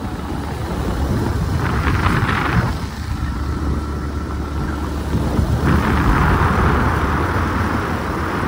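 Motorcycle running at road speed with rushing wind and road noise on the phone's microphone. The hiss swells briefly about two seconds in and again for most of the second half.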